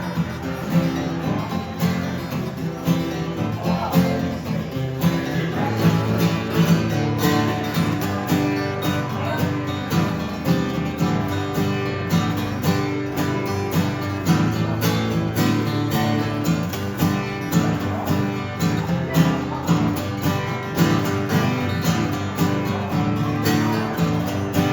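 Instrumental break in a live country-folk song, with a guitar strumming steadily and no singing.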